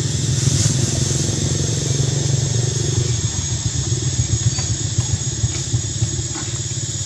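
A steady low engine rumble, like a motor running close by, with a constant thin high-pitched whine above it.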